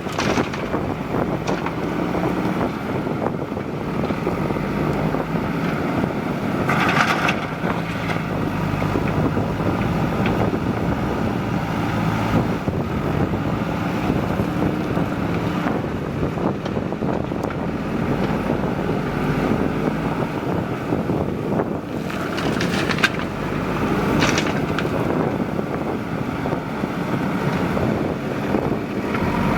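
JCB 3DX backhoe loader's diesel engine running under working load, its revs rising and falling, with a few brief noisy surges. Wind buffets the microphone.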